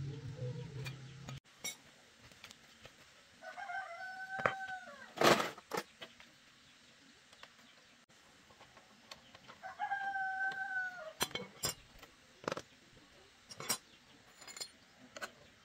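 A rooster crowing twice, each crow a bit over a second long and about six seconds apart, over scattered clinks and knocks of hand tools; a sharp knock just after the first crow is the loudest sound. A low hum stops about a second and a half in.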